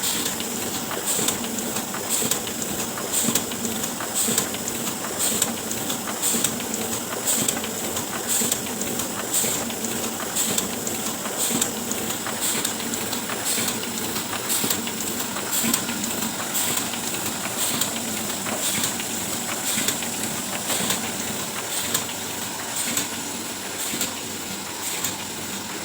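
Oliver 72 sheetfed offset printing press running, a steady mechanical clatter and hiss with a regular beat about once a second.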